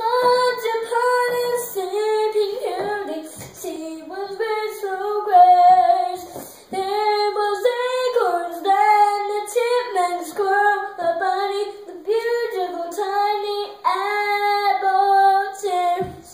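A young girl singing solo, without accompaniment, in a melodic line of held notes that slide up and down, with short breaks between phrases.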